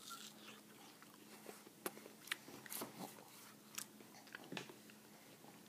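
Faint, irregular wet chewing and biting of pieces of melon, with small clicks and crunches.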